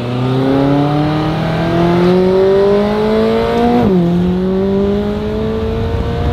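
McLaren 570S Spider's twin-turbo 3.8-litre V8 accelerating, its pitch climbing steadily, then dropping sharply at an upshift about four seconds in before climbing again.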